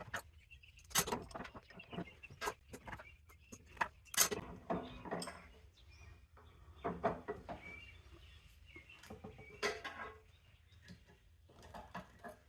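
Irregular snaps, cracks and clinks of hand tools and a vise breaking apart plastic electrical plugs to free their metal prongs.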